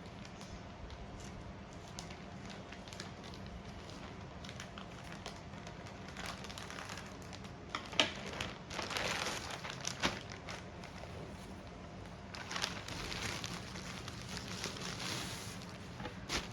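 Spells of crinkling and rustling, as something is handled, with a few sharp clicks, over a steady low hum.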